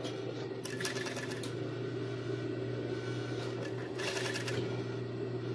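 Industrial sewing machine with a tape-binder attachment stitching binding tape onto swimsuit fabric in short bursts of rapid needle strokes, once about a second in and again around four seconds. Its motor hums steadily between the bursts.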